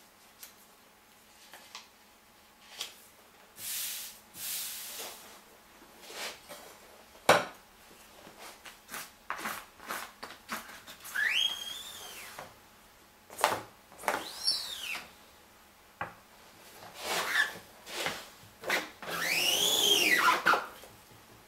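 Rubber-bladed squeegee dragged across an inked silkscreen mesh in repeated strokes, some of them squealing with a high whine that rises and falls in pitch, the longest near the end. Sharp wooden knocks of the squeegee against the frame come between strokes, the loudest about a third of the way in.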